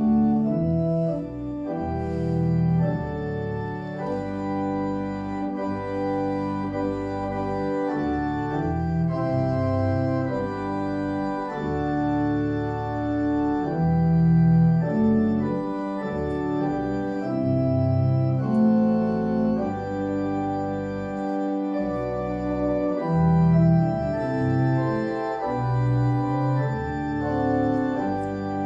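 Church pipe organ playing a hymn tune: held chords in several parts moving from one to the next about every second.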